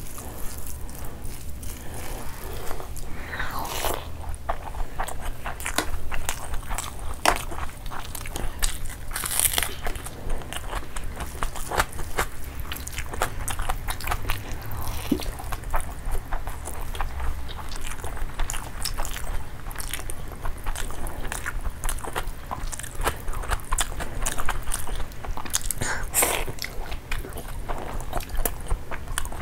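Close-miked eating: chewing and biting into curried chicken, eggs and rice. Curry-soaked rice is squished by hand, under a dense, uneven run of wet mouth clicks and smacks.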